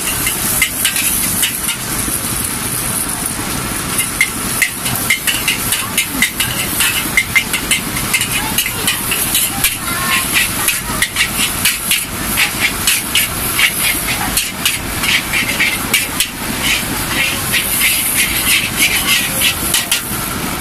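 Metal spatula clanking and scraping against a wok in rapid clusters of clinks, as flat rice noodles are stir-fried in hot oil over a gas burner. Under it runs a steady sizzle and hiss from the frying and the burner.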